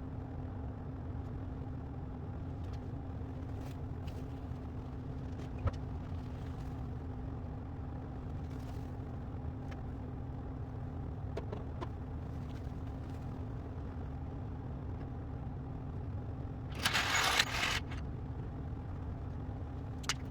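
Steady low mechanical hum with a faint constant tone, a few small clicks, and a brief loud clatter about three-quarters of the way through.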